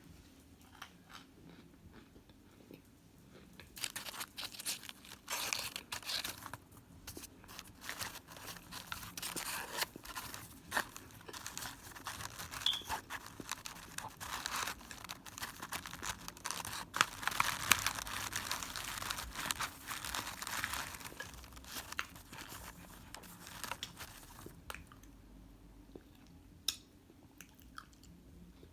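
Chewing and crunching of microwaved cornstarch chunks. It starts with soft chewing clicks, turns to dense, crackly crunching about four seconds in, and eases back to scattered clicks a few seconds before the end.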